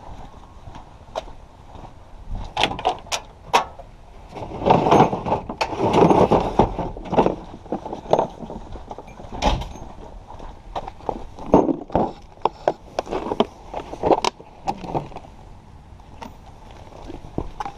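Footsteps and handling noise: knocks and clatter of a plastic socket-set case and metal sockets being picked through, with the loudest rattling bursts a few seconds in and again past the middle.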